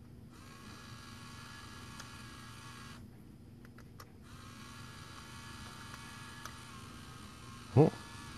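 Small DC motor of a line-following car kit running. It stops for about a second around three seconds in, then starts again. Near the end there is a brief, loud pitched squeak.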